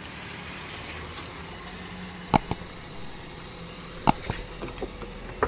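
Sharp mouse-click sound effects from an on-screen subscribe-button animation: a quick double click about two and a half seconds in, another double click about four seconds in, and a single click near the end. A faint steady low hum runs underneath.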